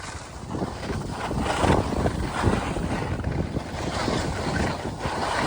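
Wind buffeting a moving skier's microphone: a gusty low rumble under a rushing hiss that swells near the end.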